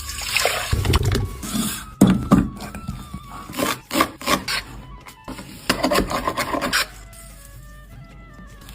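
Kitchen food-preparation noises: rubbing and scraping with several sharp knocks. Soft background music with a simple melody is heard under it, alone near the end.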